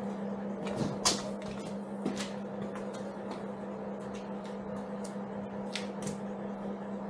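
Scattered light clicks and knocks, the strongest about a second in, over a steady low hum.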